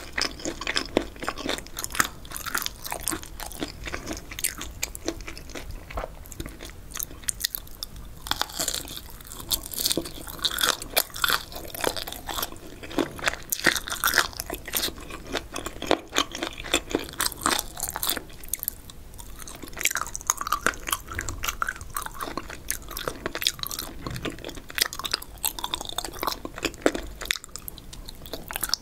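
Close-miked chewing of spicy boneless chicken feet and pork skin: a steady run of crunchy, crackling bites mixed with chewing.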